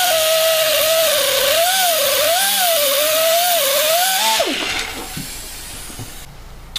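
A handheld high-speed grinder cutting rusted steel out of a bus wall, its pitch dipping and rising as it is pressed into the metal. It is let off about four and a half seconds in and winds down.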